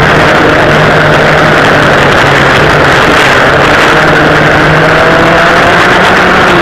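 Vintage racing go-kart's two rear-mounted engines running hard and loud on track, the pitch rising about five seconds in as the kart accelerates.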